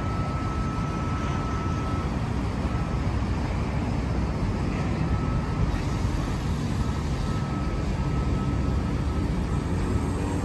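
Double-deck V set electric intercity train running past along the platform, a steady rumble of its wheels on the rails. A faint, thin, high steady tone sounds over it for the first few seconds and again briefly later.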